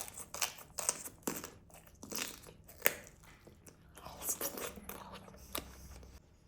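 Close-miked eating of grilled chicken: irregular bites and chewing with crunchy crackles, the sharpest click about three seconds in.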